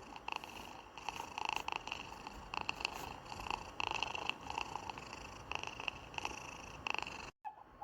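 Domestic cat purring in a continuous run of rough pulses, cut off abruptly near the end.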